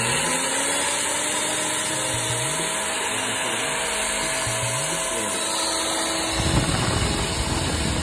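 Swadesi Krafts 1250 W electric putty and paint mixer running at its lowest speed setting, a steady motor whine with its spiral paddle spinning free in an empty bucket. About six seconds in, a lower rumble joins.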